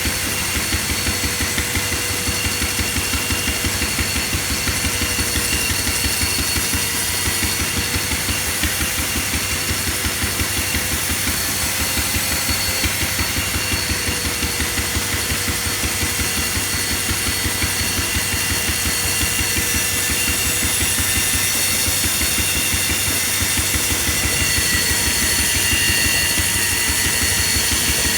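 An engine running steadily at an even speed with a rapid, regular pulse, turning an improvised lathe; a faint steady whine sits above it.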